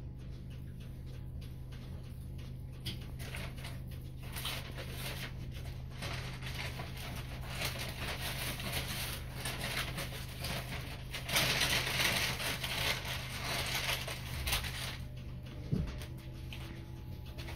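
Interior running noise of a Networker electric multiple unit: a steady low hum under the rush of wheels on rail, heard from inside the passenger saloon. The rushing grows louder partway through and is loudest in the middle, with occasional short clicks, then eases near the end as a faint steady tone comes in.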